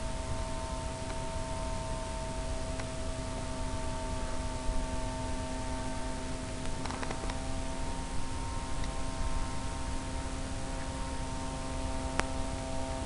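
A steady hum of several constant tones over an even hiss, unchanged throughout, with a few faint clicks.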